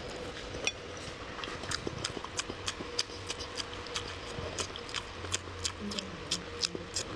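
Close-miked wet chewing and lip-smacking of fatty pork belly: a steady run of moist mouth clicks, about three a second, over a faint low hum.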